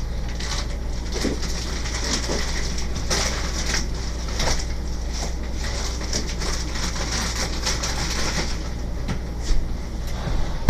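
Packaging crinkling and rustling as frozen chicken strips are taken out and counted, with irregular small crackles over a steady low hum.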